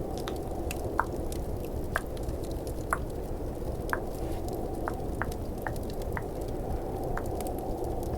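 Close-up wet tongue clicks, about one a second at first, then softer and quicker, over a steady low rumble of snowstorm and fireplace ambience.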